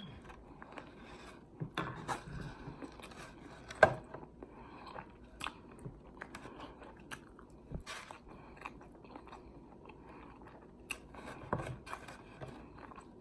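Close-miked biting and chewing of a sausage dog with coleslaw: soft wet mouth sounds with scattered clicks and smacks, the sharpest about four seconds in.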